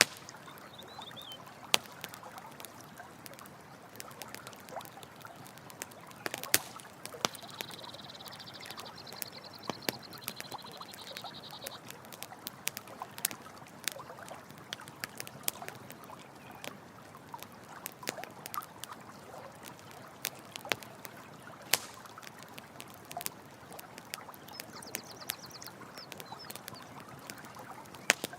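Campfire crackling with frequent sharp pops over a steady rush of running water. A rapid high trill sounds for about four seconds near the middle and again briefly near the end.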